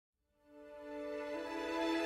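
Music: soft, sustained chords fading in from silence about a third of a second in, the opening of a song's intro.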